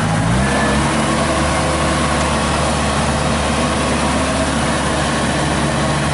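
Farm machine's diesel engine running steadily; about half a second in it revs up to a higher speed and holds there.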